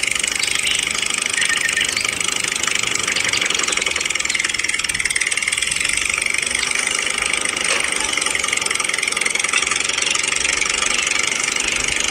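Tractor engine running steadily with a fast, even chugging.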